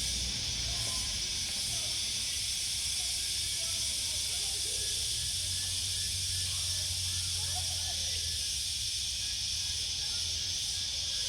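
Countryside ambience: a steady high-pitched hiss with a few faint bird-like chirps and a low rumble underneath.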